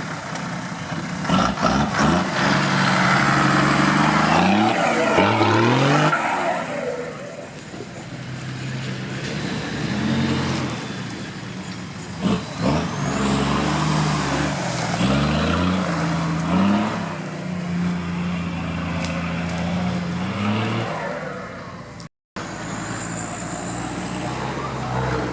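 Off-road vehicle engine revving hard again and again, the pitch climbing and dropping with each burst of throttle. A rushing noise builds over it from about two to six seconds in, and the sound cuts out for an instant near the end.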